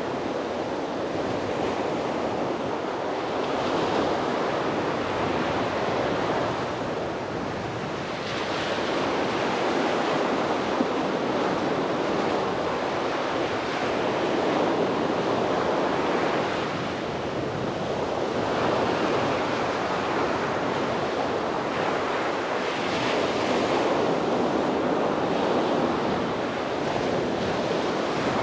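Sea waves breaking and washing up on a beach, a continuous surf noise that swells and ebbs every five seconds or so.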